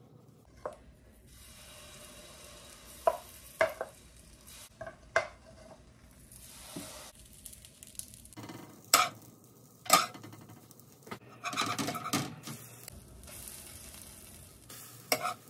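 Corn pancake batter sizzling in a little butter on a hot comal, with a utensil clicking and knocking sharply against the pan several times and scraping across it for about a second later on.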